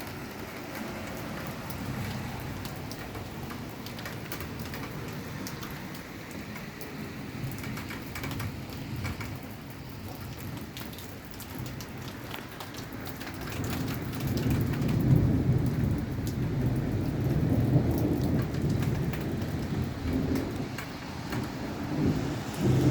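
Steady rain falling, with a long low rumble of rolling thunder that builds a little past halfway and grows louder.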